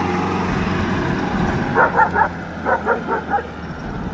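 Mahindra Bolero pickup's engine running steadily as the truck pulls away across a soft field. A dog barks in two quick runs of short, sharp barks in the middle.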